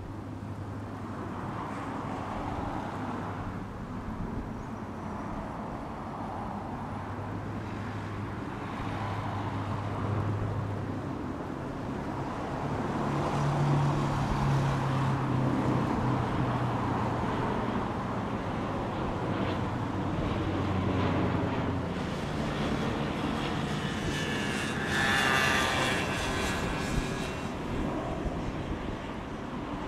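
Twin turboprop engines of a Canadair CL-215T/415 water bomber running as it flies low overhead. The propeller hum grows louder about halfway through, and its pitch shifts up and then down as the plane passes. A brief higher-pitched tone sounds near the end.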